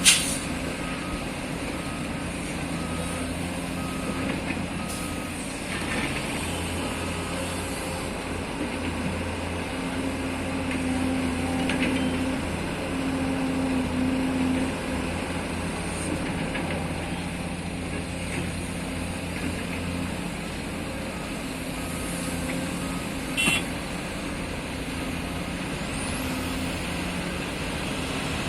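Diesel engines of an excavator loading a dump truck with sand, running steadily and growing louder for a few seconds in the middle. A backup alarm beeps evenly about six times in the first few seconds. There is a sharp clank at the start and another a little over 23 seconds in.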